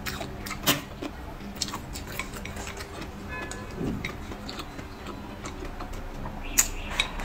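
Close-miked eating sounds: wet chewing and lip-smacking on braised pork trotter, heard as a string of irregular sharp clicks, the loudest just before a second in and again near the end, over a steady low hum.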